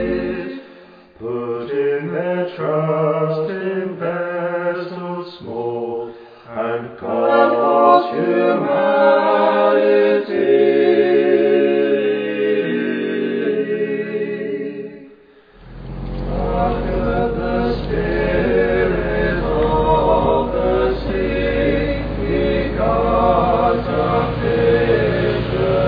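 Unaccompanied group singing. About halfway through it fades briefly and comes back over a steady low rumble.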